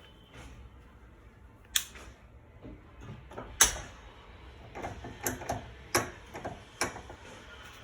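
Irregular sharp clicks and knocks of garage door hardware being handled, the loudest about halfway through.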